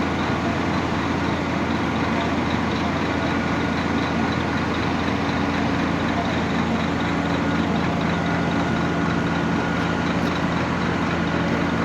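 Steady road traffic with a heavy vehicle's engine running at a constant pitch.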